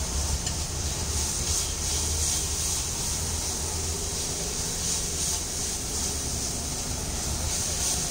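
Egg bhurji sizzling on a wide iron griddle while a metal masher presses and scrapes through it, with a few faint irregular clicks. A steady low rumble runs underneath.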